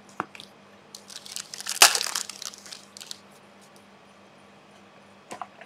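Trading cards being handled: a light click near the start, a short loud rustle about two seconds in, then a few soft clicks near the end.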